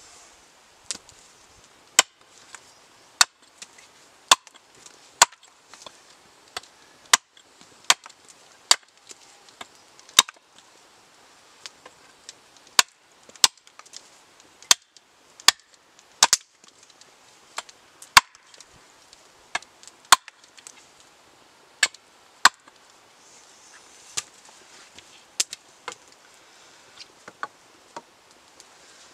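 Hatchet chopping at the end of a wooden pole resting on a chopping block: sharp, single strikes at an uneven pace of about one a second. The blows thin out and grow lighter after about 23 seconds.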